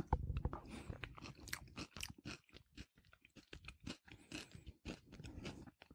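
A person chewing a mouthful of coronation chicken, a curried chicken salad: a run of quiet, irregular mouth clicks.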